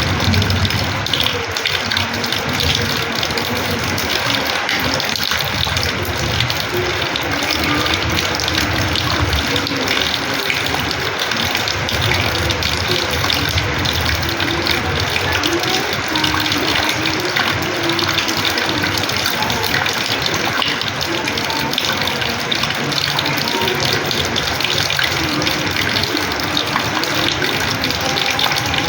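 Rainwater pouring and splashing onto a house's terrace floor in a steady, unbroken rush.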